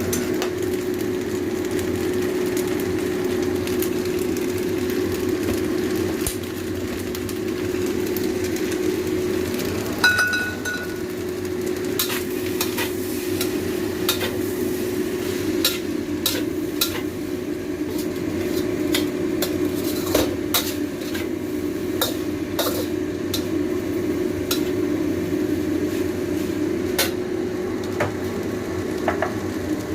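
Mie goreng frying in a pan: steady sizzling, with a utensil stirring and tapping against the pan in many sharp clicks from about twelve seconds in, and one ringing metal clink about ten seconds in. A steady hum runs underneath.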